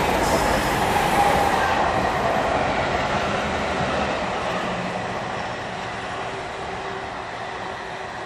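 Steam train hauled by Black 5 locomotives passing, loudest about a second in and then fading gradually as it draws away.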